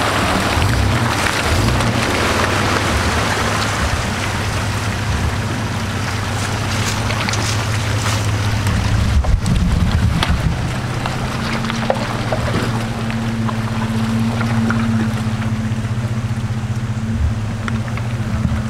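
Off-road truck engine running at low, steady revs under a loud rushing noise, with scattered knocks and clicks.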